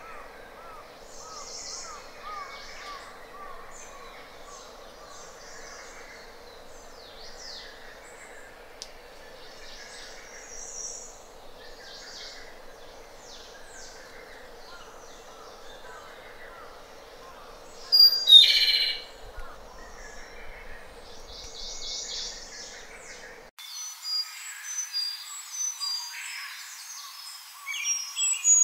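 Japanese robin (Larvivora akahige) singing: one loud, high trilled phrase that falls in pitch, a little past the middle, over faint chirps from other birds and a steady hiss. Near the end, after a cut, comes a quick run of loud high notes.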